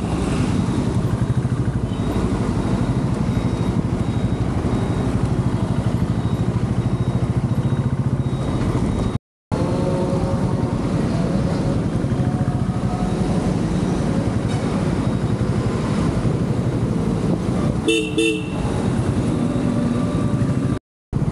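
Royal Enfield Classic 350's single-cylinder engine running at riding speed, its exhaust beating steadily, with road noise, broken by two brief gaps of silence. Near the end a vehicle horn gives two short honks.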